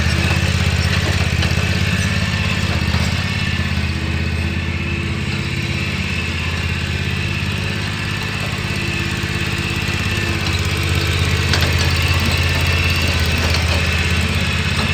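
Exmark Turf Tracer Ultracut 48 commercial walk-behind mower's engine running steadily while the machine is driven and turned, blades not yet engaged.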